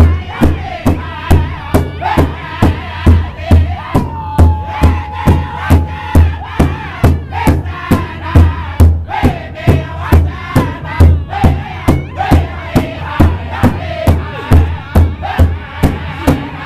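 Powwow drum group singing a Northern-style powwow song in high voices over a steady unison beat on a large hide drum, about two and a half strokes a second. One voice holds a long note about four seconds in.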